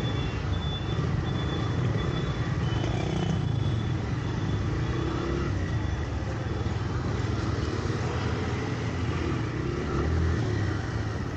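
Motorcycle riding on a city road: steady engine and road rumble with wind noise. A few short high beeps come in the first second or so.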